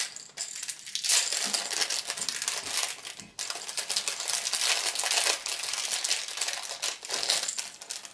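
Small clear plastic bag crinkling and rustling as hands open it and pull out a fishing lure, with a brief pause about three seconds in.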